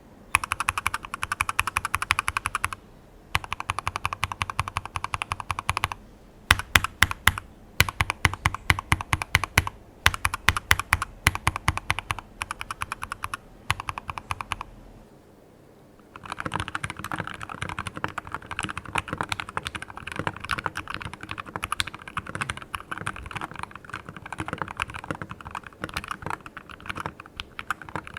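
Mechanical keyboard with JWK Lavender linear switches, a stainless steel plate and GMK-style keycaps being typed on. Bursts of fast typing give way to slower, separate keystrokes in the middle; after a short pause, steady fast typing runs to the end.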